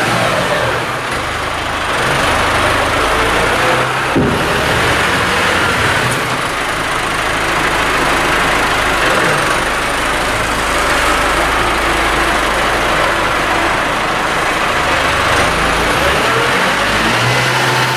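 Front-loader tractor's diesel engine running as the tractor drives and reverses, its note rising and falling slowly with the revs. A single sharp knock about four seconds in.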